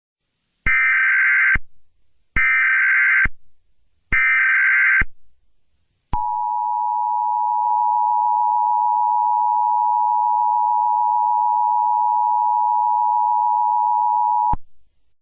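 Emergency Alert System alert tones. Three short bursts of SAME header data tones, each about a second long with short gaps between them, are followed by the steady two-tone attention signal. The attention signal holds for about eight seconds and then cuts off abruptly.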